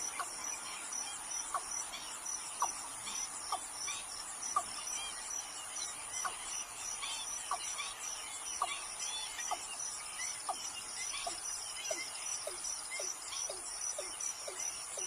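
Watercock calling: a series of short, falling notes, about a second apart at first, then coming faster and lower toward the end. Behind it runs a steady high insect drone, with scattered chirps from small birds.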